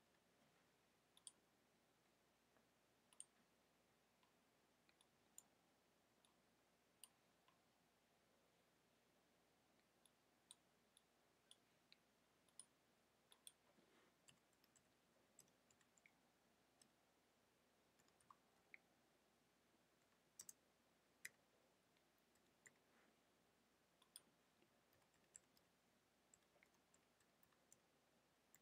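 Faint, irregular clicks of computer keyboard keys being typed over near silence.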